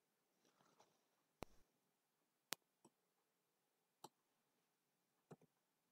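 Near silence with four faint, separate clicks of a computer mouse, spread a second or so apart.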